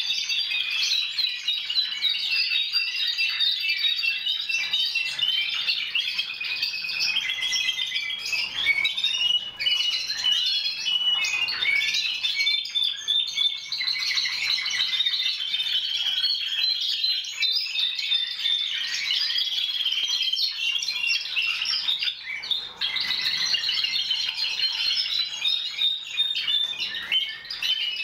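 Several Timbrado Español canaries singing at once in overlapping runs of rapid trills and rolls, with brief lulls about a third of the way in and again near the end.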